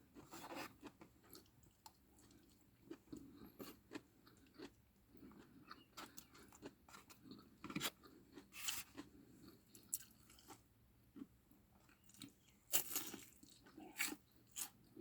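A person chewing food, with faint, irregular crunches and wet mouth clicks, a little louder about halfway through and again near the end.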